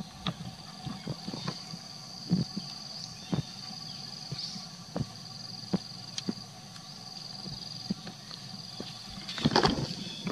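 Outdoor ambience dominated by a steady high-pitched insect drone, with scattered small clicks and taps and a brief louder rustling burst about nine seconds in.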